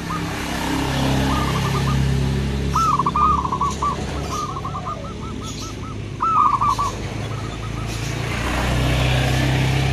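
Zebra doves (perkutut) calling in bursts of quick, soft, rolling coo notes, the loudest bursts about a second long, answering one another. A low steady hum runs underneath.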